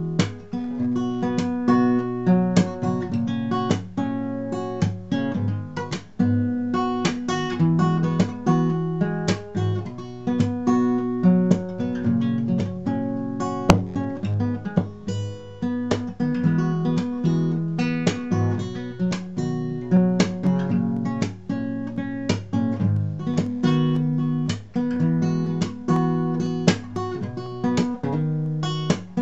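Acoustic guitar played fingerstyle: a steady stream of plucked notes over a repeating bass pattern.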